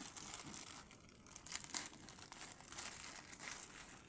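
Thin black plastic courier mailer bag crinkling and rustling unevenly as it is handled and cut open with steel scissors.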